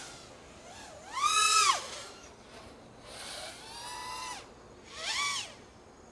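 Everwing Beast 6S five-inch FPV racing quadcopter's motors and propellers whining with the throttle: three surges whose pitch swells up and falls back, the loudest about a second in, the others about three and five seconds in.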